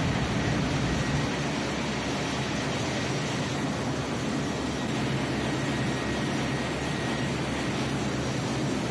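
Steady engine-room noise of a ship's MAN B&W ME-C two-stroke slow-speed diesel main engine running under load for a performance test: a constant, even din with a low hum underneath.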